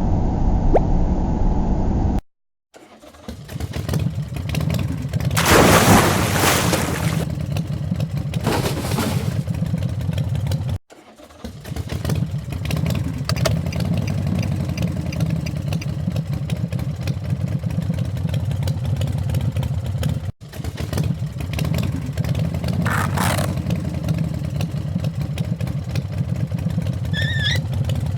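Plastic toy bus running along with a steady rattling whir, broken by a few abrupt cuts, louder for a moment a few seconds in.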